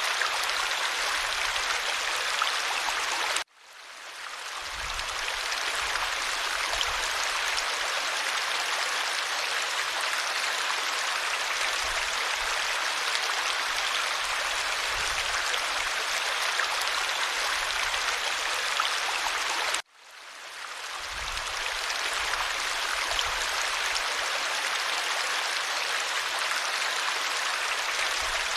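Stream water running over stones in a steady rushing babble. It cuts out abruptly twice and fades back in over a second or two each time.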